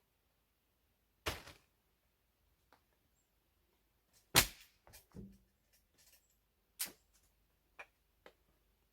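A few sharp, irregular knocks and bangs with quiet between them, the loudest about four and a half seconds in.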